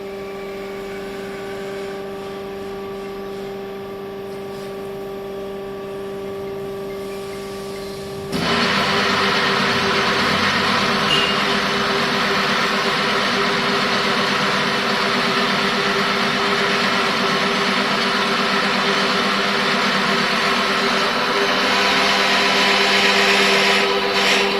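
Hydraulic drilling special-purpose machine running: a steady hum with a few held tones, then about eight seconds in a much louder rushing noise starts suddenly and carries on over the hum.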